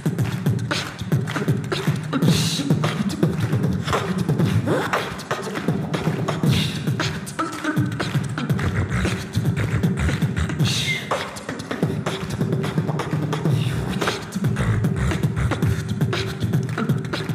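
Beatboxing into a handheld microphone: fast, dense mouth-made drum hits (kick, snare and hi-hat sounds) over a deep bass line.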